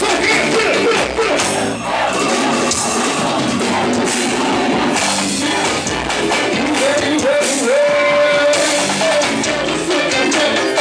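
Live pagode band playing loud through a PA, with a singer on the microphone over the band and percussion. A long steady note is held from about seven seconds in.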